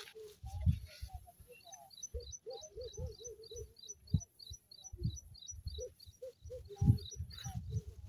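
Birds calling: short low notes in runs of several, and a rapid series of high double chirps, about four a second, from about two seconds in until near the end. A few low thumps come in between.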